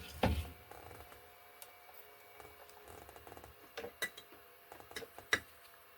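A few faint, sharp clicks and taps from handling small parts on a workbench, over a faint steady hum, during circuit-board repair work.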